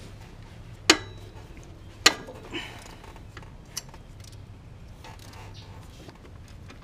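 A ratchet and socket on a 14 mm engine bolt: two sharp metallic cracks with a brief ring, about a second apart, as the bolt is broken loose, then a few fainter clinks and a tick.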